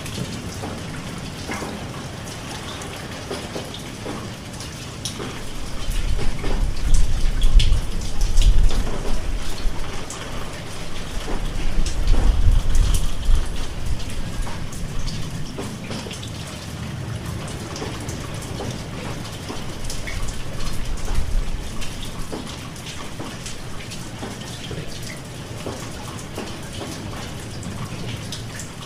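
Rain falling steadily, with many separate drop hits heard through a continuous hiss. A deep low rumble swells up and fades three times: about a fifth of the way in, near the middle, and about two-thirds in.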